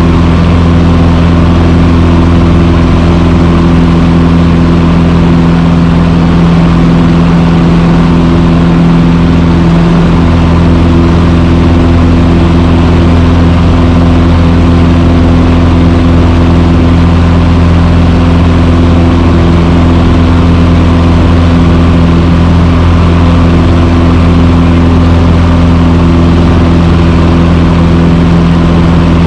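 Cessna 150's Continental O-200 four-cylinder engine and propeller running steadily at a constant pitch.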